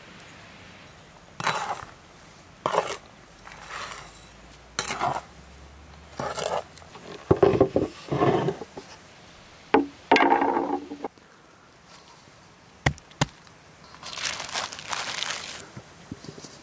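A slotted metal spoon scraping and stirring sugar, ground spices and chopped nuts on a wooden board in a series of short gritty strokes. Then a few sharp clinks and knocks of utensils and a wooden board being handled.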